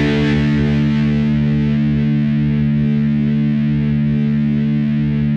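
Technoid symphonic metal music holding one long, steady chord.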